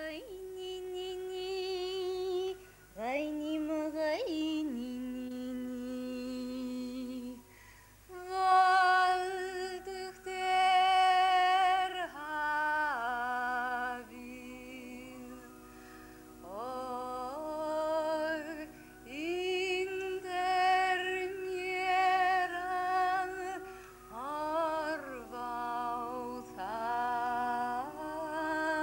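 Wordless female singing: long held notes that swoop up into each pitch, at times with two voices sounding together.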